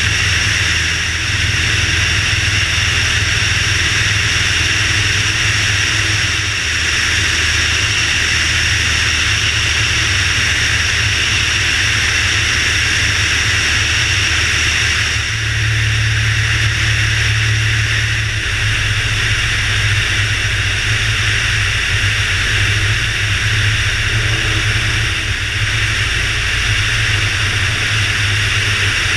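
Whisper X350 kitplane's Lycoming engine and constant-speed propeller running steadily in flight, under a continuous hiss of wind over a wing-mounted camera's microphone. The engine note shifts a little about halfway through.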